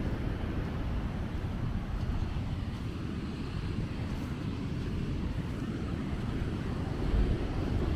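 Low, steady rumble of wind on the microphone mixed with ocean surf.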